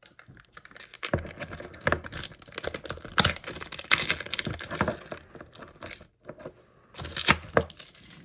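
A small miniature-toy blind box being opened by hand: a dense, irregular run of clicks and crackles from its cardboard and plastic packaging, with a short pause near the end before a few more clicks.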